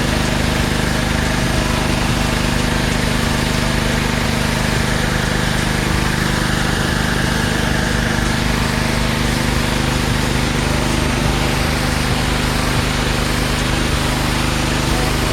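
Honda GC160 single-cylinder engine running steadily under load, driving the pump of a Karcher K2400HH pressure washer, over the hiss of the high-pressure spray. The pump holds good pressure without the unloader cycling.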